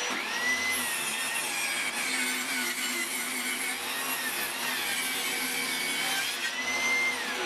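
Homemade table saw built around a 1400 W Status SP190PL handheld circular saw, running and making a 45-degree bevel cut through a wooden strip. It gives a steady whine whose pitch sags under the load of the cut and rises again about seven seconds in.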